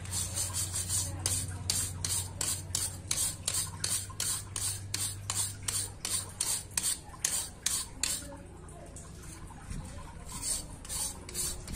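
Stiff-bristled hand brush scrubbing the metal jaws of carpenter's pincers in quick back-and-forth strokes, about three a second, to clean them during a restoration. The strokes pause for about two seconds near the end, then start again.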